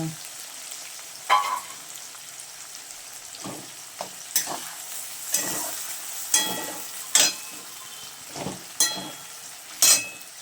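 Raw onions and garlic sizzling steadily in hot oil in a pan, while a cooking utensil stirs them, knocking and scraping against the pan about ten times.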